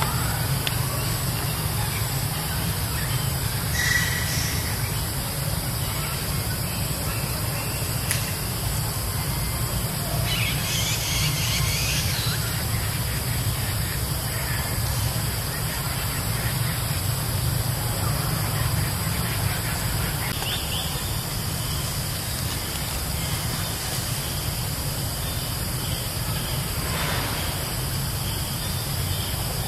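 Steady outdoor background noise: a low rumble with an even hiss, and a few faint brief chirps scattered through.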